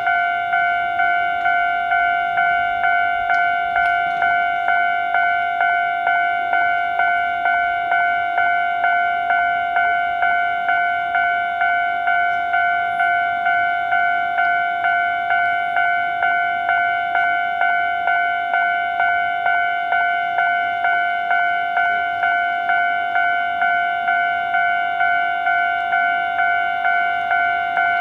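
Japanese railroad crossing alarm ringing its electronic kan-kan bell in a slow, even rhythm, each strike dying away before the next.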